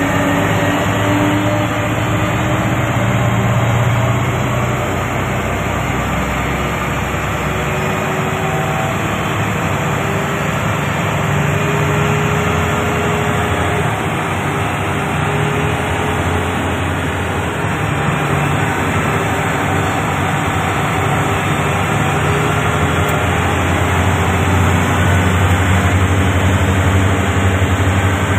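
Komatsu HD465-7 dump truck's diesel engine pulling the truck away at low speed, its revs climbing steadily from just above idle to about 1,700 rpm. A continuous low engine hum that grows a little louder near the end.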